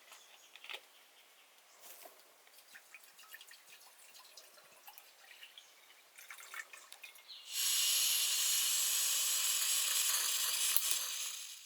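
Faint scattered drips and ticks, then about two-thirds of the way in a sudden loud, steady pour of water that lasts about four seconds and fades away.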